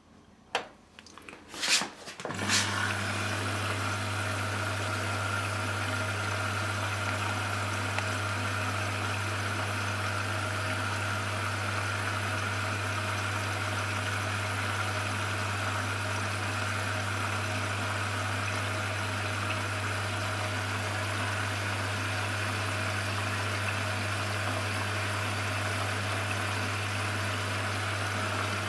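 A few clicks and knocks, then a washing machine starts and runs with a steady low hum and hiss that does not change.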